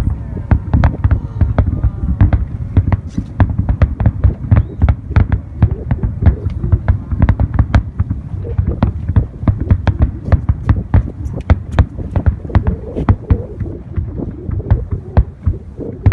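Fireworks display: shells bursting in a rapid, unbroken string of bangs, several a second, over a continuous deep low booming.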